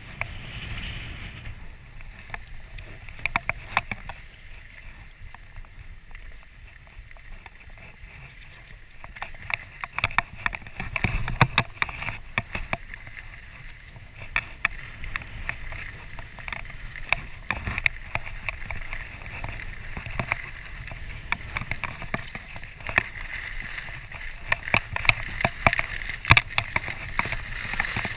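Skis sliding and scraping over groomed snow, with wind rushing on the microphone of a camera worn by the skier and many sharp clicks and rattles throughout. The rush grows louder about ten seconds in and again near the end as the skier picks up speed down the slope.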